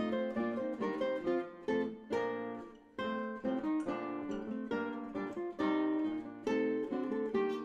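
Background music on acoustic guitar: strummed chords, with a brief break about three seconds in.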